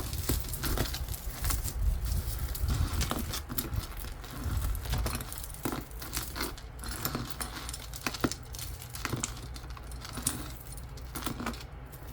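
Pieces of costume jewelry clinking and rattling against one another as they are rummaged through and handled, a run of small irregular clicks.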